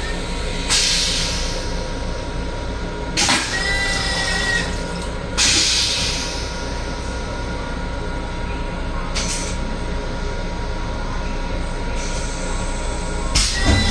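Flush cycle of an LIRR M7 railcar restroom toilet: several short, loud hissing rushes, one with a brief high squeal about three and a half seconds in, over the steady running noise of the train.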